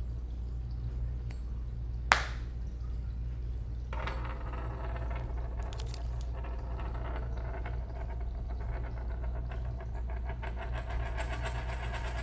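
A sharp click about two seconds in, then from about four seconds a coin spinning on a hard surface, a ringing, rattling whirr that keeps going. A steady low hum sits underneath.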